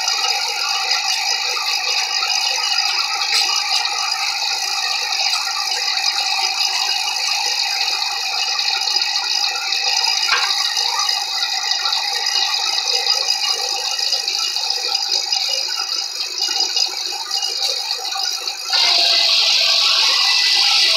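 Clark portable circular sawmill running, with a steady mechanical rattle. About nineteen seconds in, the sound jumps to a louder, even rushing hiss as the blade goes into the cut.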